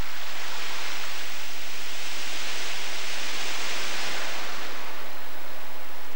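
Waterfall: a steady rush of falling water that swells louder in the middle and eases a little toward the end.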